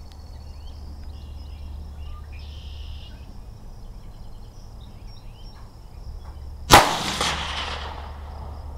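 A single shot from a scoped Mossberg 640 KD rifle about two-thirds of the way in, its report trailing off over about a second. Insects chirr steadily throughout.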